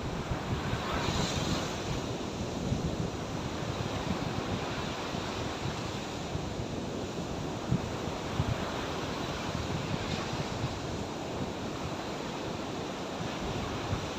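Sea surf washing steadily on the shore, with wind buffeting the microphone; a wave breaks a little more loudly about a second in.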